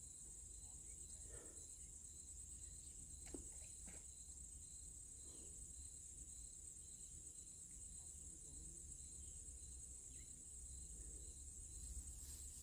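Faint insect chorus: a steady, high, finely pulsing trill of crickets, with a second, lower insect call repeating at an even rate. A low rumble runs underneath, and there is a faint click about three seconds in.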